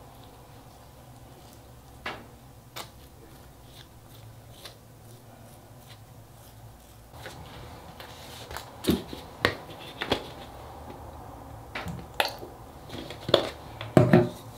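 Close-up food-prep handling on a wooden board: a spatula scraping sauce across a soft burger bun and hands moving the buns, giving soft scrapes and scattered light taps and knocks. These come sparsely at first and more often in the second half, with the loudest knocks near the end as ketchup goes onto a bun.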